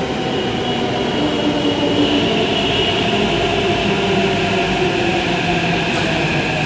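Hyderabad Metro electric train pulling into the station and slowing, with a steady rumble and a whine of several tones that slowly falls in pitch as it decelerates.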